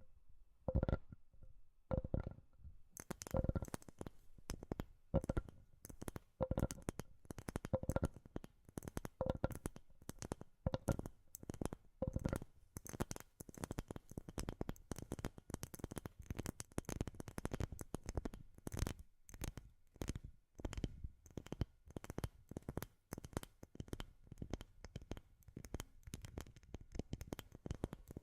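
Quick, irregular tapping on a wooden surface, several taps a second. For about the first dozen seconds each tap carries a short ringing note; from about three seconds in the taps turn brighter and more clicky.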